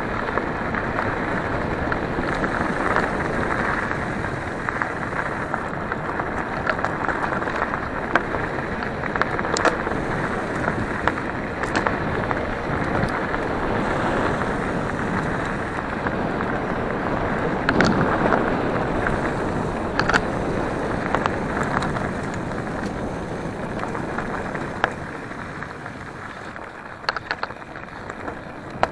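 Mountain bike riding over a dirt and gravel forest track: a steady crunching rush of tyres on the loose surface, with sharp clicks and knocks from stones and the bike scattered throughout. It quietens somewhat a few seconds before the end.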